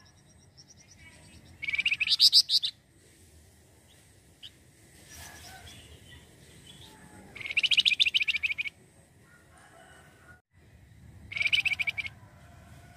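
Flamboyan (wergan jawa, Javan fulvetta) songbird giving three fast chattering trills of rapidly repeated high notes, each about a second long.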